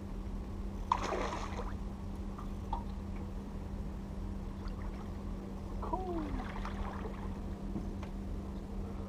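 Water splashing as a hooked largemouth bass thrashes at the surface beside the boat, once about a second in and again more faintly around six to seven seconds, over a steady low hum.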